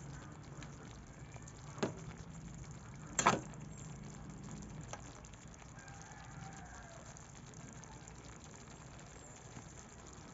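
A metal spatula clicks sharply against the cooking pan twice in the first few seconds, the second knock the loudest, over a faint steady hiss from the simmering pan. About six seconds in, a rooster crows faintly.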